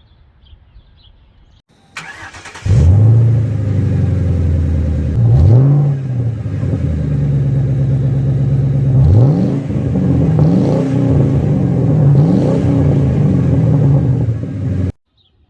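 Car engine starting about two seconds in, then running with several quick revs that rise and fall in pitch, cutting off abruptly near the end.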